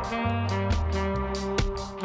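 Background music: an instrumental track with a walking bass line, a steady beat of drum hits and sustained instrument notes.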